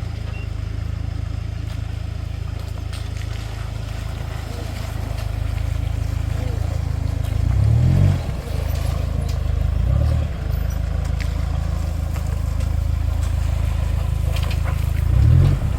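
Vehicle engine running with a steady low rumble, swelling briefly louder three times, about eight, ten and fifteen seconds in.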